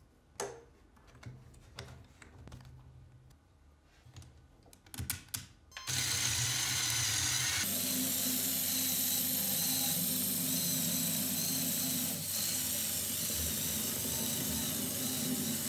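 A few faint clicks as LEGO Technic beams are handled, then from about six seconds in the steady whir of a motorised LEGO car's small electric motor and plastic gears as it drives along a table.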